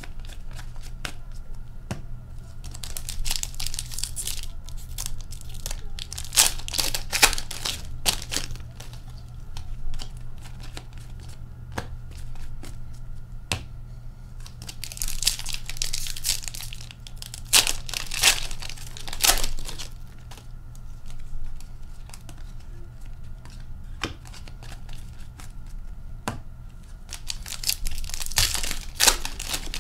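Foil wrappers of Upper Deck hockey card packs being torn open and crinkled, in several short crackly bursts, between small clicks of cards being handled and set down on a glass tabletop.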